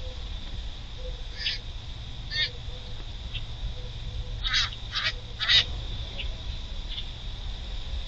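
Grackles giving short, harsh calls: a couple of single calls, then three louder ones about half a second apart around the middle, and a few fainter ones after.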